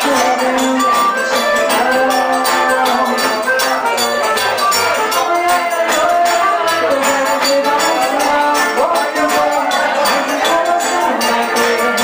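Live forró band playing: accordion and acoustic guitar over hand percussion keeping a steady, even beat.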